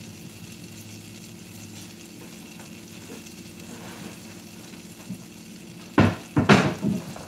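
Butter sizzling faintly as it melts in a hot cast iron pan, a steady low hiss. About six seconds in come a few loud, sudden knocks and rustles.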